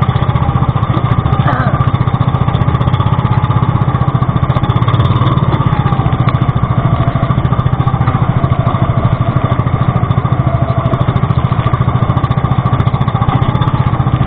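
Pumpboat's inboard engine running steadily under way, with a fast even throb, and water splashing against the hull and outriggers.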